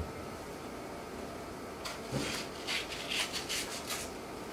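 Kitchen knife scraping and slicing the skin off a firm, unripe mango in a run of short, quick strokes starting about two seconds in.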